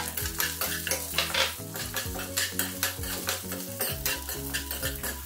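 Steel spoon stirring and scraping lentils and seeds as they roast in hot oil in a steel kadai, with a light sizzle. Metal scrapes against the pan over and over.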